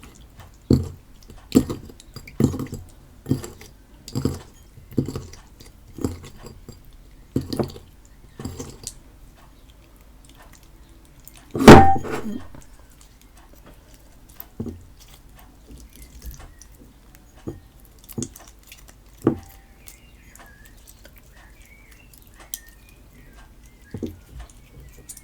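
Homemade PVA-glue and bicarbonate-of-soda slime being worked by hand: a regular run of short wet squelches about one a second, then one much louder knock about twelve seconds in, and fewer, quieter squelches and clicks after that.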